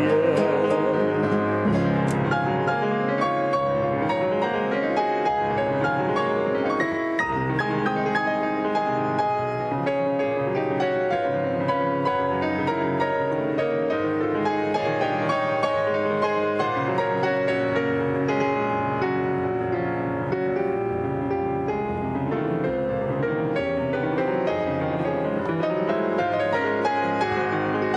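Instrumental interlude of a bard song, the accompaniment playing on alone between sung verses.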